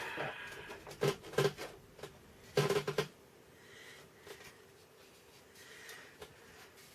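Short clicks and knocks of hands handling the MKS-20 digital piano module's front panel on a workbench, a couple about a second in and a short cluster near three seconds, then quiet handling.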